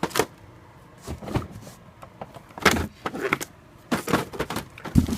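Firework packages being handled: irregular rustles and knocks of cardboard and plastic as items are picked up and set down.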